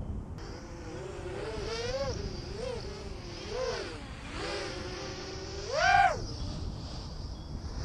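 Small FPV quadcopter drone's motors and propellers buzzing, the pitch wavering up and down with the throttle, with a louder, higher burst of throttle about six seconds in.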